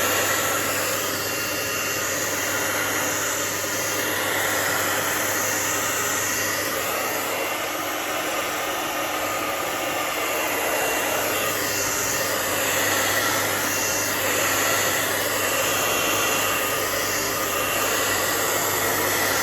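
Handheld hair dryer running steadily on hot, blowing onto freshly applied exhaust repair paste on a muffler to dry and harden it.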